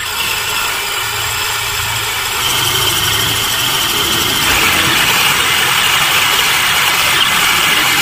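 Electric motors and gearboxes of two RC cars, an SG 1612 buggy and a 1/12 Jeep Willys, running flat out against each other in a rope tug of war, a steady high-pitched whine over the noise of wheels spinning in sand. It gets louder about two and a half seconds in and again about halfway through.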